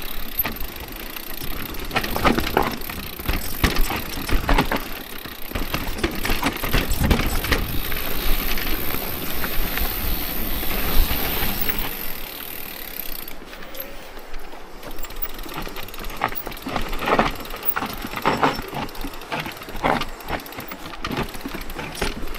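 Orbea Rise e-mountain bike ridden over a rocky dirt singletrack: tyres crunching on gravel and stones, with frequent rattles and knocks from the bike over bumps.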